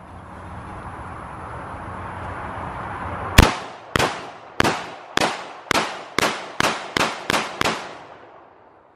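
AR-style semi-automatic rifle fired about ten times in single shots, starting a few seconds in, with the shots coming faster toward the end. The first shot is the loudest.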